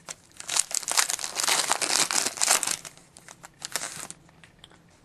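Crinkling and rustling of a plastic card-pack wrapper handled during a trading card break, ending in a few light crackles and clicks about four seconds in.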